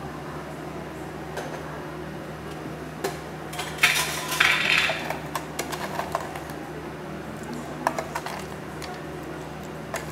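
Clinks and clatter of cafe ware and a clear plastic container being handled on the counter as a drink is topped, with a loud rattling scrape about four seconds in and a few sharp clinks later. A steady low hum runs underneath.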